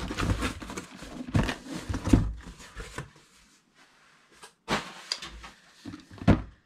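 Handling noise from parts and packaging being moved about on a table: uneven rustling and knocks, a short lull in the middle, then a few sharp knocks.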